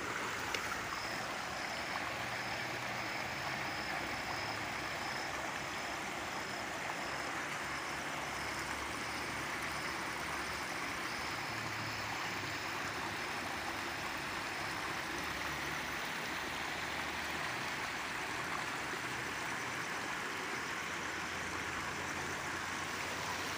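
Shallow stream rushing and splashing over rocks and boulders, a steady even sound of running water.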